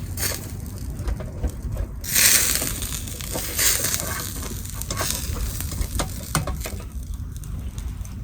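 Meat sizzling on a grill over a campfire, a steady hiss with scattered pops, rising in a louder burst about two seconds in and again briefly about a second later.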